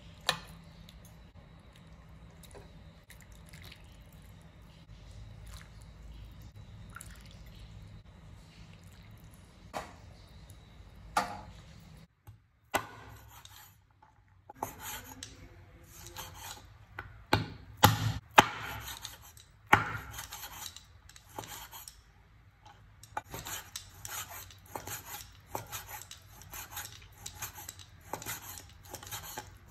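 A ladle knocking against a bowl a few times as soup is spooned out, over a faint low hum. Then a cleaver chopping raw meat on a wooden cutting board: scattered heavy chops, the loudest a little past halfway, followed by a quick, steady run of cuts.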